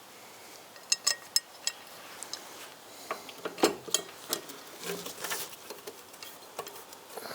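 Small metal bolts and hardware clinking as they are handled: a few sharp, ringing metallic clicks about a second in, then scattered lighter knocks and rattles.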